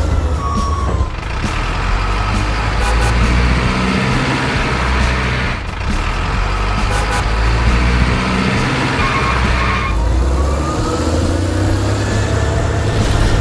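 Heavy truck engine sound running steadily, with a few short beeps in the first second and a rising whine starting about ten seconds in.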